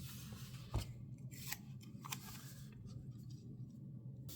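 Small scissors snipping a few times, with light handling rustles.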